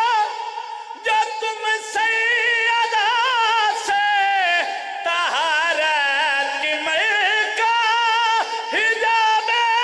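A man singing a verse of a Punjabi qasida (devotional poem) in a high voice with no instruments, holding long notes with wavering ornaments. The phrases are broken by short breaths.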